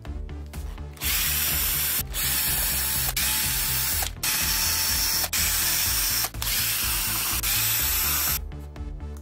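Makita cordless driver running in a string of roughly one-second bursts with brief breaks, backing screws out of a plastic drill housing. Background music plays underneath.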